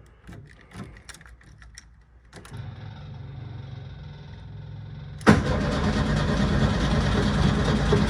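A run of clicks, then a steady low electric fuel-pump hum from about two and a half seconds in. About five seconds in, the starter cranks the 1972 VW Super Beetle's air-cooled flat-four loudly without it firing, which the owner takes for no spark.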